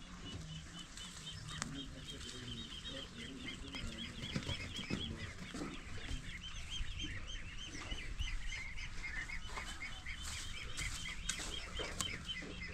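Birds chirping in a busy, continuous chatter of short, quickly repeated high notes, with a few brief clicks.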